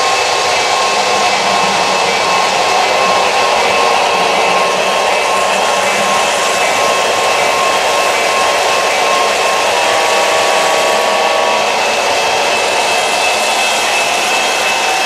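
O-gauge three-rail model train running on metal track: a steady rush of wheels on the rails mixed with an electric motor's whine, a few steady tones held over the noise.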